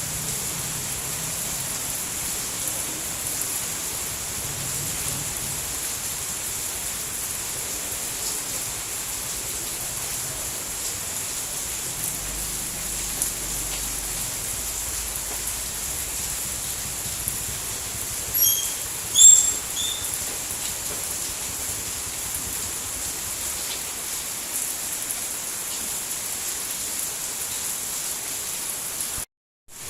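Steady, dense rainfall hiss. A couple of brief high chirps stand out about two-thirds of the way in, and the sound cuts out for a moment near the end.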